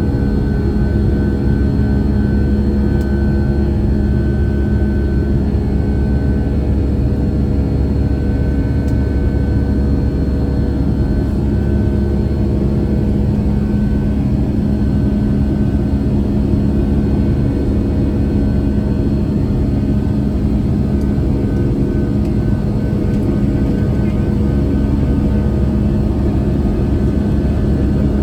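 Boeing 757-200 jet engines running steadily, heard as a loud, even rumble with a constant hum and a faint high whine.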